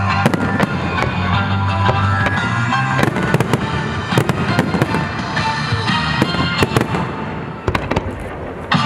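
Aerial firework shells bursting in quick succession, many sharp bangs through the whole stretch, over the display's accompanying music. The bangs thin out briefly near the end, then pick up again.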